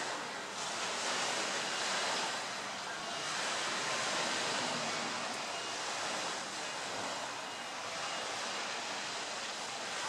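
Steady rushing of wind and water outdoors, swelling and easing every couple of seconds, with no boat engine standing out.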